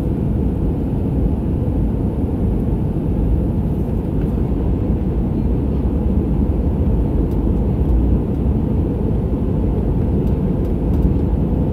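Steady low jet engine and rushing-air noise heard inside an airliner's passenger cabin as it climbs after takeoff.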